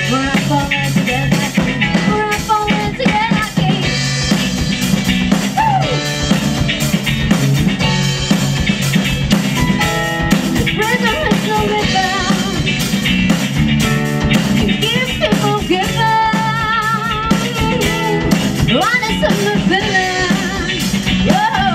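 Rock cover band playing live, with drums keeping a steady beat under guitar notes that bend up and down in pitch.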